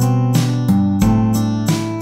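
Background music led by acoustic guitar, with plucked notes and chords struck about three times a second.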